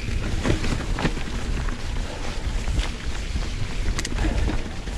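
Canyon Lux Trail full-suspension mountain bike rolling down a leaf-covered forest singletrack, its tyres running over leaves and hidden roots with a steady rumble of riding and wind noise on the camera's microphone. Several sharp knocks and rattles come from the bike as it hits roots.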